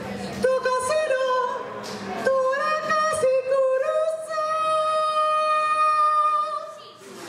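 A woman singing solo into a microphone: a melody of short sung phrases that ends in one long held note near the end.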